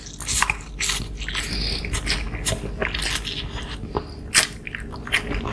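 Two people slurping and chewing pansit bihon (stir-fried rice noodles): wet sucking slurps with many short mouth clicks.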